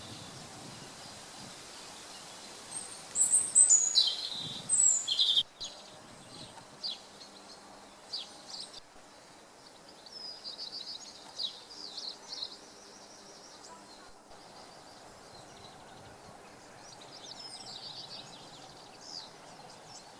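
Woodland birds singing and calling over a faint steady background noise. A burst of loud, sharp, falling calls comes a few seconds in, followed by quieter, scattered song.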